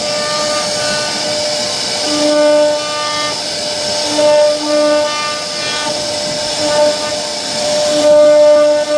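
CNC router spindle whining steadily as its bit carves a relief pattern into a wooden door panel, with a hiss of cutting underneath. The whine's upper overtones come and go every second or so as the bit moves through the wood.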